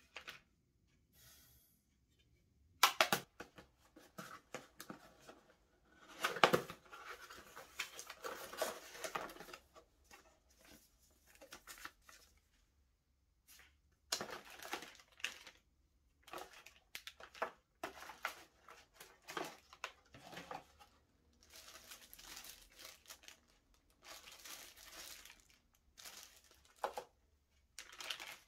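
Packaging being handled: cardboard boxes opened and plastic bags crinkling in irregular rustles, with a few sharp knocks as items are set down.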